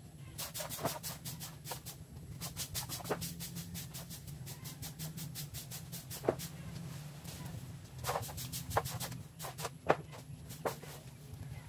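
Open fire of burning yard rubbish crackling with many quick clicks and a few louder sharp pops, over a low steady hum.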